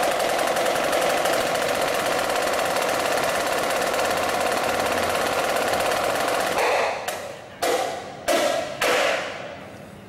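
Snare drum played with sticks: a long, even, rapid roll, then four or five separate hard strikes, each left to ring out, closing the solo.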